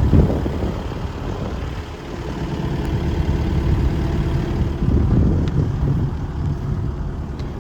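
Sany SY135C excavator's Isuzu diesel engine idling with a steady low rumble.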